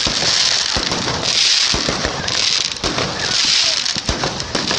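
Fireworks going off close by: about five hissing spurts, each under a second long, one after another, with sharp pops and crackles among them.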